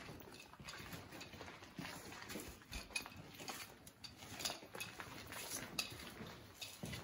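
Footsteps and scuffs on a concrete floor strewn with debris, heard as irregular light clicks and knocks.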